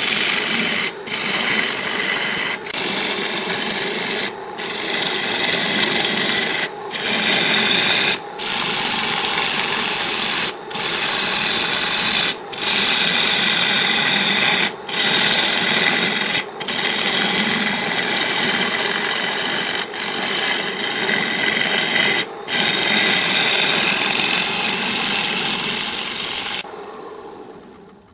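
Lathe gouge cutting into a spinning segmented wooden platter: a steady scraping hiss of wood being shaved away, broken by short breaks every second or two. Near the end the cutting stops and the sound fades away as the lathe winds down.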